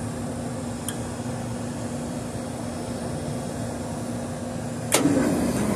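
Steady hum from a Trane Symbio 700 rooftop air-conditioning unit. About five seconds in, a sharp click comes as a compressor contactor pulls in on the cool-one test command, and the unit gets louder as a compressor starts. The contactor that pulls in is circuit 2's rather than circuit 1's: the staging fault under investigation.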